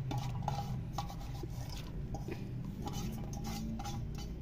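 Soaked chana dal (split chickpeas) sliding from a steel pot into a steel pressure cooker as a hand scrapes it out along the metal, with scattered light taps of the split peas.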